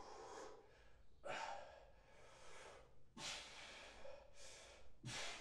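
Faint, hard breathing of a man exerting himself through a set of dumbbell overhead tricep extensions, a quick noisy breath about once a second.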